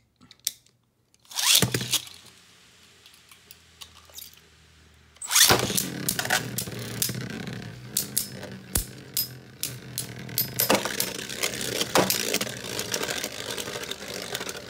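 Two Beyblade Burst tops launched into a plastic stadium about five seconds in, then spinning and scraping across the stadium floor with many sharp clacks as they strike each other and the walls. A short rasping noise comes a second and a half in, before the launch.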